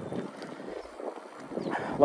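Wind rushing over the microphone, a steady hiss.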